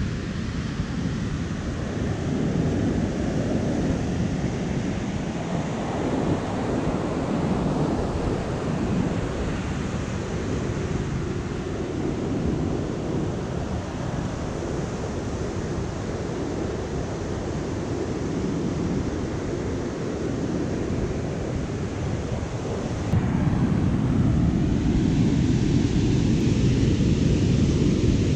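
Ocean surf breaking, mixed with wind buffeting the microphone: a steady low rushing noise that steps up in loudness near the end.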